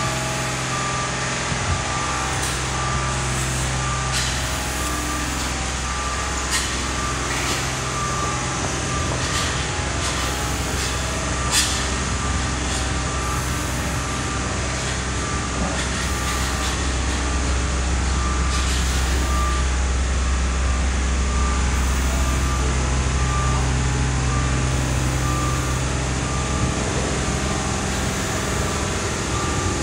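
A short electronic beep repeating at a steady pace over a loud, steady low hum, with a few faint clicks.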